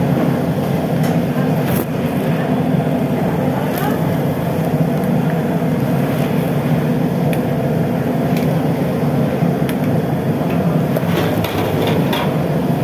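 Steady low rumbling noise of commercial kitchen equipment around a gas-fired rice pot, with a few faint clinks.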